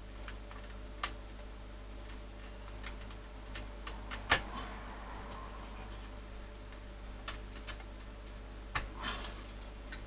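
Scattered small plastic clicks and taps as fingers work a flat ribbon cable loose from its connector on a circuit board, the sharpest click about four seconds in, followed by a brief soft rustle. A faint steady low hum runs underneath.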